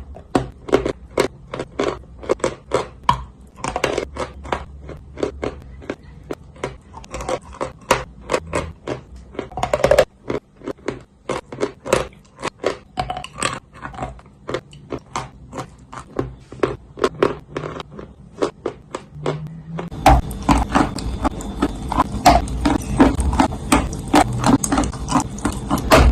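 Dry clay crunching between the teeth as it is bitten and chewed: rapid crisp crunches, several each second, turning louder and denser about twenty seconds in.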